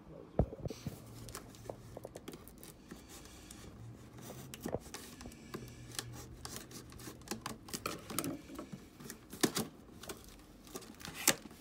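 Small cardboard box being opened by hand: flaps scraping and rustling, with irregular taps and clicks. The sharpest clicks come about half a second in and near the end.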